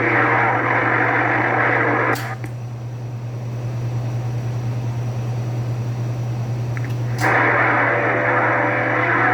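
CB radio receiver hissing with static and faint garbled signal. About two seconds in the carrier drops off with a click, leaving only a steady low hum. Around seven seconds another carrier keys up with a click and the static returns.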